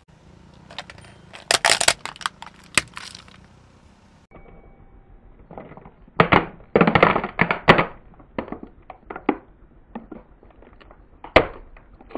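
Hollow plastic toy cracking and snapping as a car tyre rolls onto it and crushes it. The cracks come in several bursts, with scattered smaller clicks between them.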